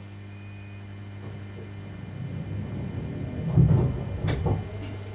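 Steady electrical hum of a Thurbo electric multiple unit standing at the platform. A low rumble swells from about two seconds in and peaks near the three-and-a-half-second mark, followed by a sharp click and a fainter second click.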